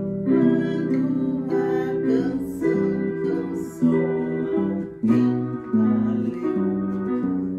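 Electronic keyboard playing a song, with a woman singing along.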